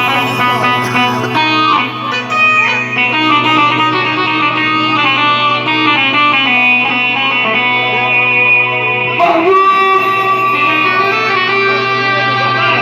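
Instrumental passage from a live band between sung lines: a melody of plucked-string-like tones over a steady low drone, with a fresh phrase entering about nine seconds in.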